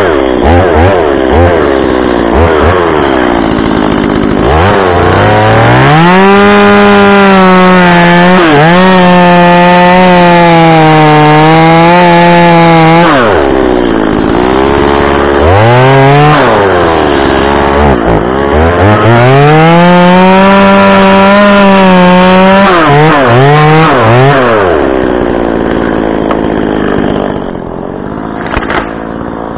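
A two-stroke chainsaw cutting through the trunk of a small white pine to take the top off. It revs high and holds there in two long stretches, drops back toward idle between them and blips a few times, then dies down and cuts off at the very end.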